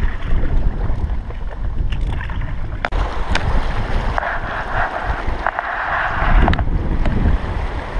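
Wind buffeting the microphone over water rushing past a small inflatable boat in a shallow, rocky river rapid. The hiss of water grows louder for about two seconds in the middle, and there are a few sharp knocks.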